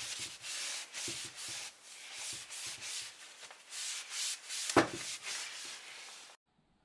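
Cloth wiping over a leather steering wheel rim in quick, repeated rubbing strokes, degreasing it with solvent and clearing off sanding dust. There is a brief knock just before five seconds in, and the sound cuts off abruptly near the end.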